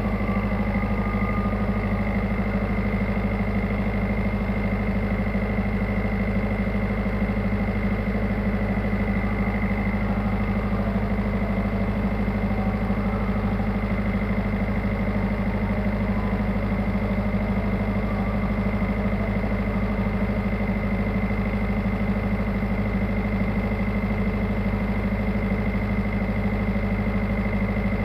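Tugboat's diesel engine running steadily at an even pitch, with a thin steady high whine above it.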